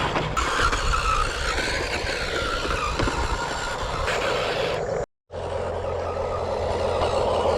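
Small electric motors and gearboxes of RC construction trucks running with a wavering whine. The sound cuts out abruptly about five seconds in and resumes as a steadier drone.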